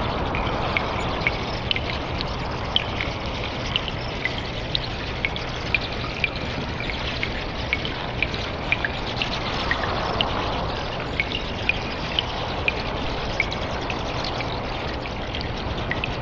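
Cave water ambience: a steady trickle of running water with frequent sharp drips falling irregularly, two or three each second.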